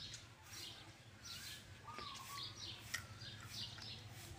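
Small birds chirping over and over, with a few short warbling whistled notes and a sharp click about three seconds in.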